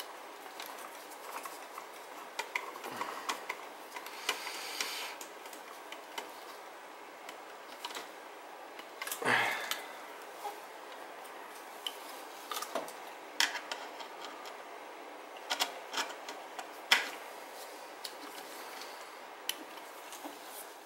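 Scattered light clicks and taps of hand work on the wiring inside an open plastic boiler control box, with one louder handling sound about nine seconds in.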